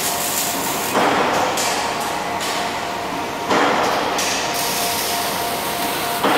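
Robotic welding cell at work: three sudden clacks, each followed by a hiss that fades away, about two and a half seconds apart, over a faint steady machine tone.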